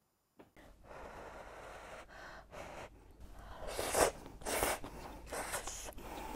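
A person slurping udon noodles from a ladle: a rough sucking hiss that builds up, then two loud slurps about half a second apart past the middle.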